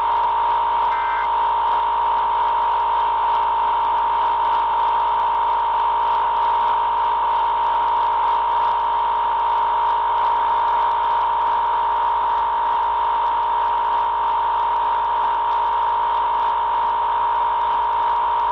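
Emergency Alert System attention signal: a loud, steady two-tone alarm played over AM radio with static hiss, holding unbroken and then cutting off abruptly near the end. About a second in, a short warbling burst of digital header data sounds over it.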